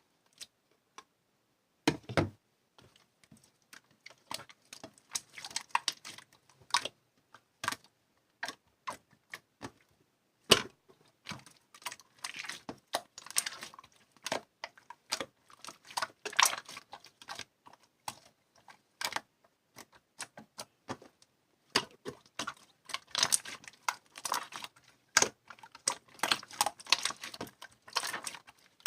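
Rapid, irregular clicking and tapping in clusters, with a few louder knocks among them.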